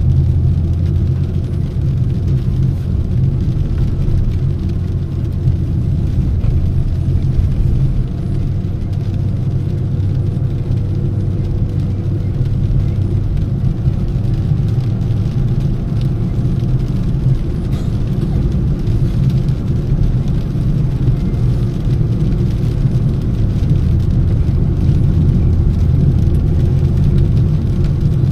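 Car driving on a wet road, heard from inside the cabin: a steady low rumble of engine and tyre noise.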